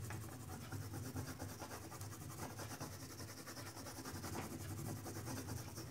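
Red oil pastel scratching and rubbing across a sheet of drawing paper in quick back-and-forth strokes as an area is coloured in.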